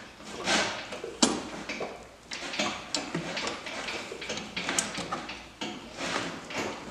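Metal-on-metal scraping and clicking as a bulkhead side plate is worked by hand onto the A-arm bolts of a snowmobile chassis, being forced until it lines up. Irregular scrapes and clinks, with one sharp knock about a second in.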